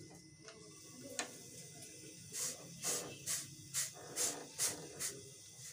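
A hand rubbing and turning a pizza base against a frying pan: a run of about seven short, dry swishes, a little over two a second, starting a little over two seconds in.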